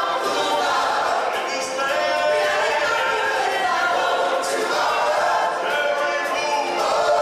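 Choir of many voices singing together as part of a stage show's music.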